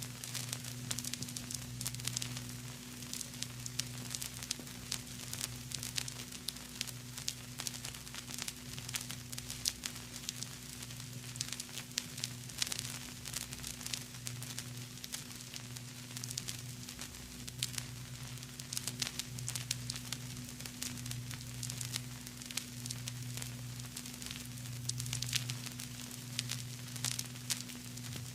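Vinyl record surface noise: a continuous fine crackle of clicks and pops, with a steady low hum underneath.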